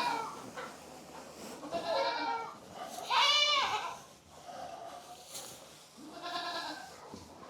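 Goats bleating, three separate calls with the loudest a little past three seconds in: clamouring for hay at feeding time.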